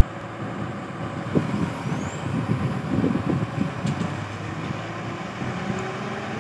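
Diesel engine of a Tata Hitachi crawler excavator running as it works its boom and bucket, with an uneven low rumble in the first few seconds that settles into a steadier hum near the end.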